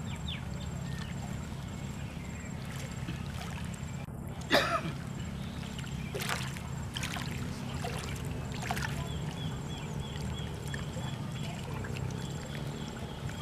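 Outdoor lakeside ambience: a steady low rumble with a few short, sharp chirps, the loudest about four and a half seconds in.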